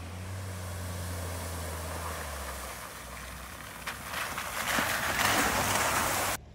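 Honda Ridgeline pickup driving through a shallow creek crossing: water splashing and spraying off its tyres and body, growing to a loud rush of spray in the last two seconds before it cuts off abruptly.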